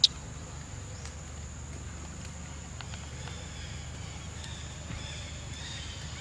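Outdoor ambience: a steady high insect drone over a low rumble, with one sharp click at the very start and faint short high chirps in the second half.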